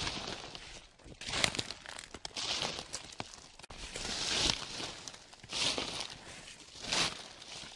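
Footsteps crunching through a thick layer of dry fallen leaves: five rustling, crackling steps at a slow walking pace.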